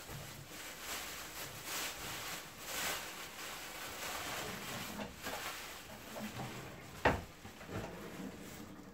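Plastic carrier bags rustling as they are handled, with a single sharp knock about seven seconds in from a kitchen drawer being shut.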